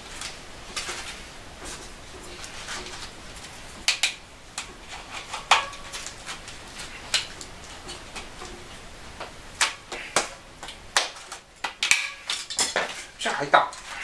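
Irregular sharp clicks and snaps of a clincher road-bike tyre being worked onto the wheel rim by hand with a tyre lever, the bead and lever knocking against the rim.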